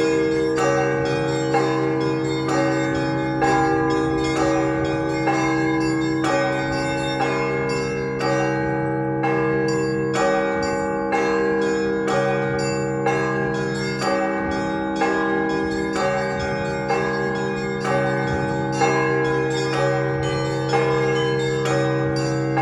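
Russian Orthodox festive church bell ringing (prazdnichny zvon) on a set of 48 bells. The smaller bells are struck in a quick, steady rhythm, about two strikes a second, over the long ringing of the deep bells.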